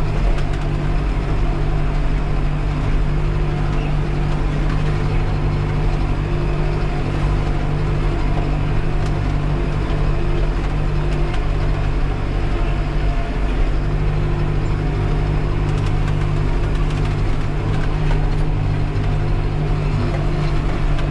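Farm tractor's diesel engine running steadily at an unchanging speed, a deep even drone.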